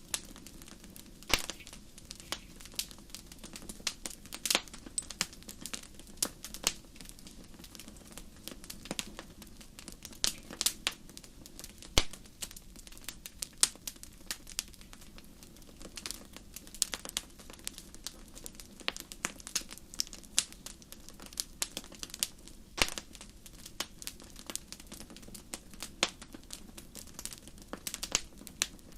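Wood fire crackling: irregular sharp snaps and pops, a few a second, over a low steady background.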